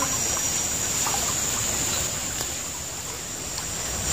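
Small shallow stream flowing over its bed, an even rushing and rippling of water, with a steady high-pitched drone above it.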